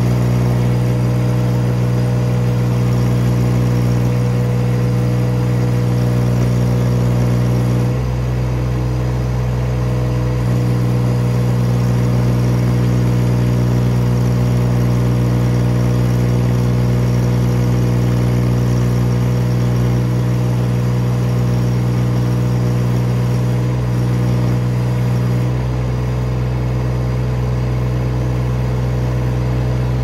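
Baumalight TRL620D mini skid steer's engine running steadily under hydraulic load while lifting a full tote of green firewood on the forks to full height. Its tone and level dip briefly about eight seconds in and again near the end.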